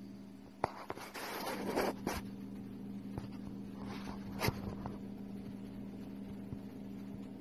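Loose sand rustling and scraping as a viper shimmies its coiled body down into it to bury itself. The rustling comes in a few short scratchy bursts, with a couple of sharp clicks, over a steady low hum.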